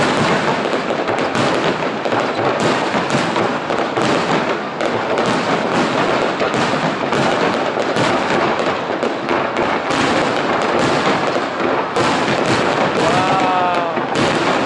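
Aerial fireworks display: a dense, unbroken run of shell bursts crackling and banging over one another, loud throughout.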